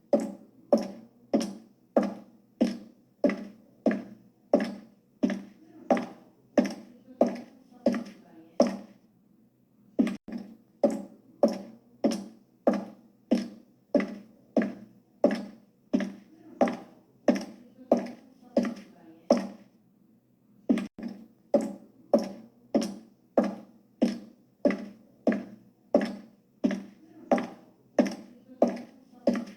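High-heeled shoes walking on a hard floor at a steady pace of about two steps a second, each step a sharp click with a short, hollow ring. The walking stops briefly about nine seconds in and again about twenty seconds in, then carries on.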